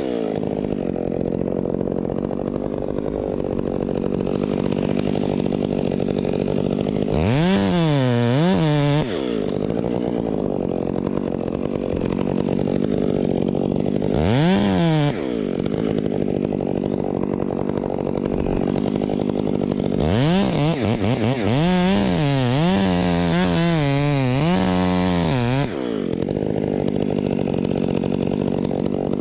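Chainsaw running steadily, with its engine revved up and let back down: once about a quarter of the way in, briefly near the middle, then several times in quick succession in the last third.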